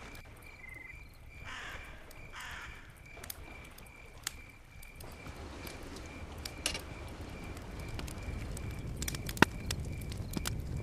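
A crow cawing twice about a second and a half in, over a faint, regular high chirping. Later come a few sharp metal clicks as a storm lantern is handled, the loudest near the end.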